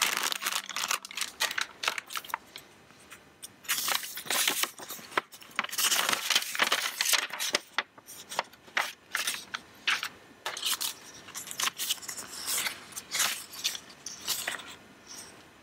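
Plastic packaging and paper sheets crinkling and rustling as they are handled, in irregular bursts.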